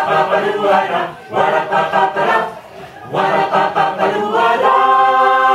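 Mixed choir of men and women singing a cappella: three short chordal phrases with brief breaks between them, then a long held chord starting a little before the end.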